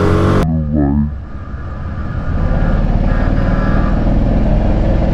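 Motorcycle riding along at speed, with the engine's steady drone under wind and road rush. A short rising glide comes just after a cut about half a second in.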